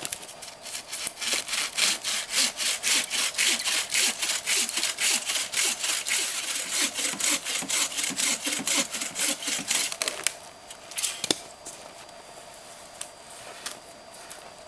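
Bow saw cutting through a log of firewood in quick, even back-and-forth strokes, stopping about ten seconds in. A single sharp knock follows a moment later.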